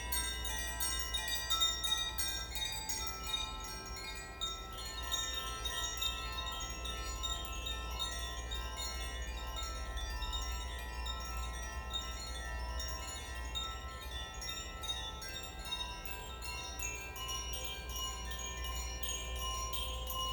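Koshi chimes being played, a continuous shimmer of light strikes with many overlapping tones ringing on and blending into one another.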